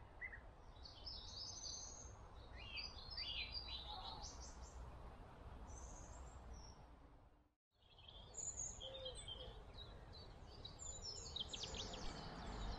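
Wild birds chirping and singing, many short calls overlapping, over a faint low background rumble. The sound cuts out completely for a moment about two-thirds of the way through and then resumes with more birdsong.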